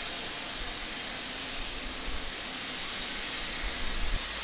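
Steady hiss of escaping steam from the standing steam tank locomotive Twizell, with a brief low rumble near the end.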